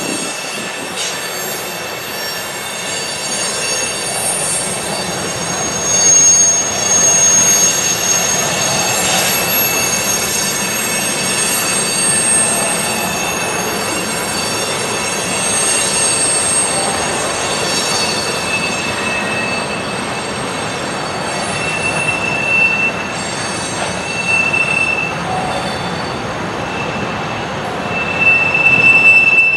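Freight train of loaded tank cars rolling through a tight curve, the wheels squealing against the rails over a steady rolling rumble. The high squeals come and go, strongest a few seconds in and again near the end.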